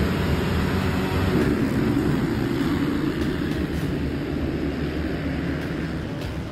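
A full field of motocross bikes launching off the start gate together, many engines at full throttle blending into one loud, dense roar. It peaks early, then slowly eases as the pack pulls away.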